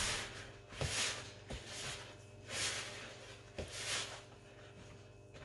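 A hand squeezing and mixing wet, sticky puff-puff batter of flour, yeast and water in a plastic bowl. It makes soft wet squelches every second or so, with a few light knocks.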